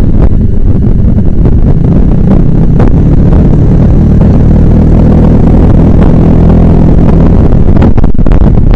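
Suzuki Burgman 400 scooter's single-cylinder engine running at a steady cruise, heard under loud wind buffeting on the microphone. The gusts are strongest near the start and again near the end.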